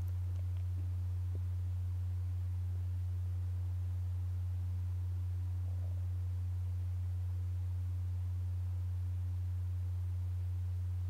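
A steady low pure tone, a drone held unchanged without a break.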